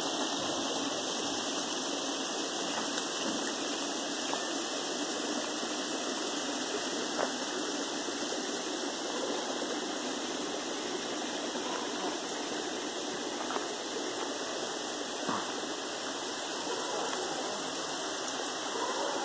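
Steady rush of flowing stream water, even and unbroken, with a few faint clicks.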